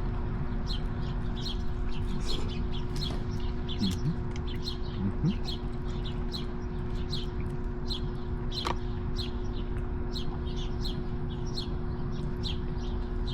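Small birds chirping, a few short high chirps each second, over a steady low hum.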